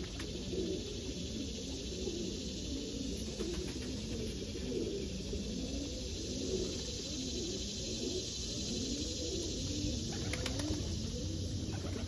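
Domestic pigeons cooing over and over, several calls overlapping in a low, rolling coo throughout, with a few faint clicks near the end.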